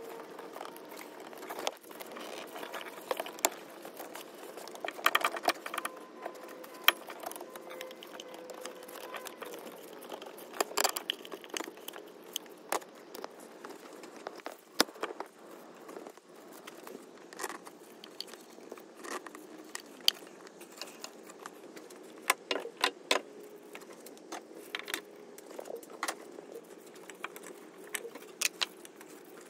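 Metal hand tools and engine parts clinking, tapping and rattling in irregular clusters of sharp clicks as pipes and components are refitted on a car engine.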